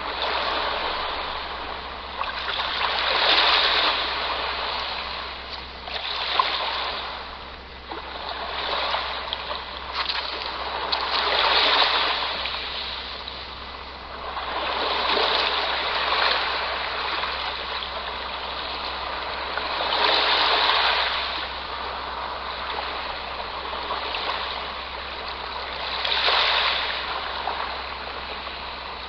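Gentle sea waves washing onto the shore, each one swelling up and falling back every few seconds.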